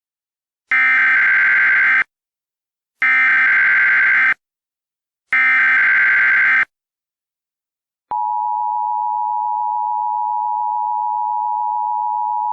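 Emergency Alert System SAME header: three identical bursts of high, buzzing digital data, each about a second and a half long and a second apart. After a short pause, the steady two-tone EAS attention signal comes on and holds without change.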